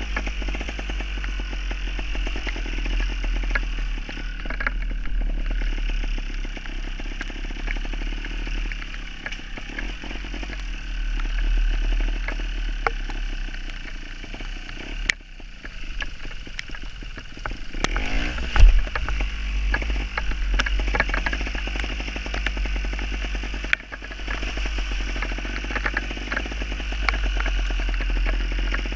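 Gas Gas TXT270 trials motorcycle's two-stroke engine running under a rider, the throttle rising and falling, with scattered knocks and clatter and one loud thump about two-thirds of the way through.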